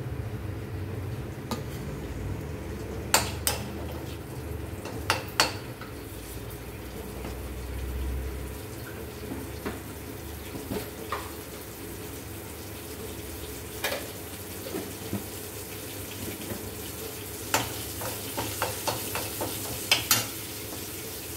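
Dry red chillies frying in hot oil in an iron kadai, with a low sizzle, and a metal ladle clinking against the pan in sharp clicks: a few in the first several seconds and a quick run of them near the end as the oil is stirred.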